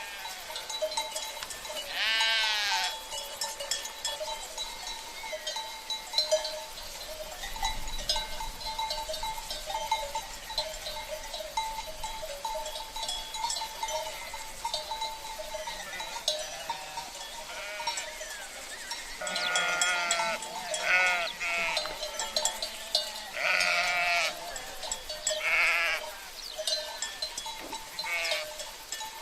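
Sheep bleating, once about two seconds in and then several times in the last third, over the steady clinking and ringing of bells worn by the flock.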